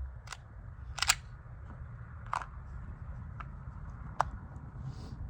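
A handful of scattered sharp clicks and clacks of hard gear being handled, about five in all, the loudest about a second in, over a steady low rumble.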